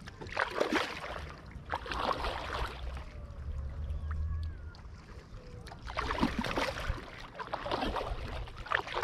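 Double-bladed paddle strokes splashing in lake water beside an inflatable paddleboard, a stroke every second or so, with a pause in strokes in the middle.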